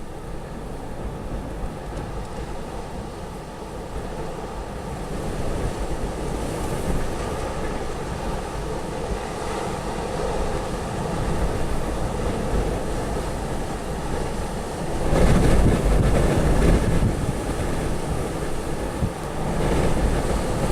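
Storm wind of a hurricane-force windstorm blowing in gusts and buffeting the microphone, with the strongest gust about fifteen seconds in.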